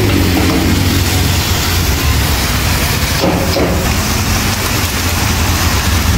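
Sliced beef sizzling in a wok as it is stir-fried with a metal spatula, with a steady low rumble underneath.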